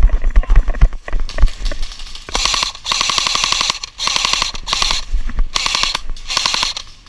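Airsoft guns firing several rapid full-auto bursts of fast clicking, starting about two seconds in, after a few low thumps.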